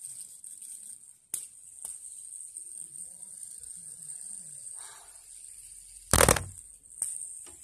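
Handling noise from a fidget spinner played with by hand: light clicks about a second in and again near the end, and one loud knock about six seconds in, over a faint steady high-pitched hiss.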